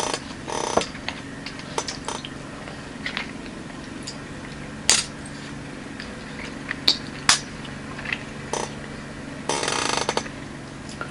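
Small plastic candy tubes and bottles being picked up and set down on a table, giving scattered light clicks and taps, with a short hissing rustle near the end, over a steady low hum.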